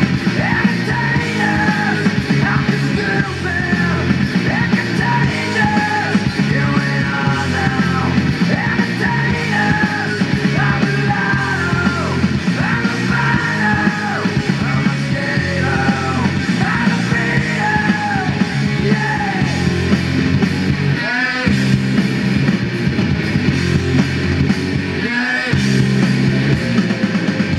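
Rock music with singing, played loudly through a Sony TA-F707ES MOS-FET integrated amplifier and a pair of hi-fi speakers and picked up in the room. The bass drops out briefly twice near the end.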